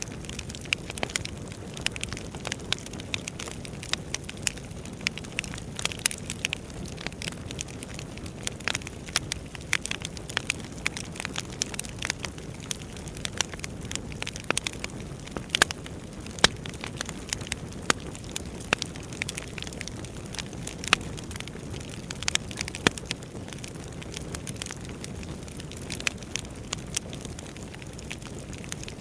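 Wood fire crackling: frequent irregular sharp snaps and pops over a steady low rumble of burning logs.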